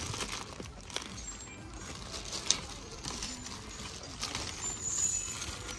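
Dolls being handled and rummaged through on a store shelf: scattered light clicks and knocks, with one sharp click about two and a half seconds in.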